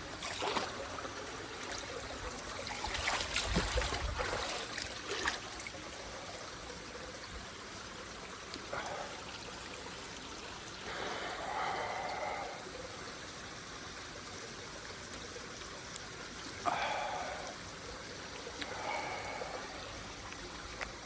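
Water running and trickling steadily, with a louder, choppier stretch a few seconds in and a few short brief sounds later on.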